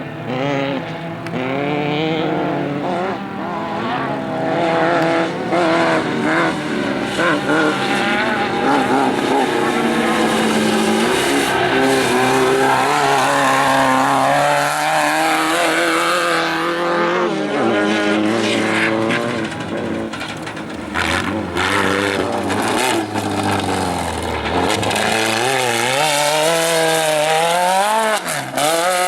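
Off-road race vehicle engines revving hard, their pitch rising and falling again and again as the vehicles accelerate and pass by, with a sharp rise and fall near the end.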